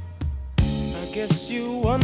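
Music from a soul-style song. After a brief lull, a drum hit and bass come in about half a second in, and a singing voice enters near the end.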